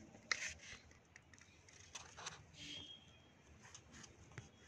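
Faint handling noise: one sharp click about a third of a second in, then a few light ticks and rustles.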